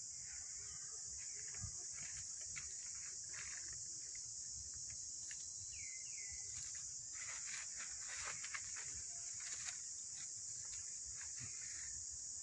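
Steady high-pitched drone of insects in the trees, with faint scattered clicks and a couple of short falling chirps about six seconds in.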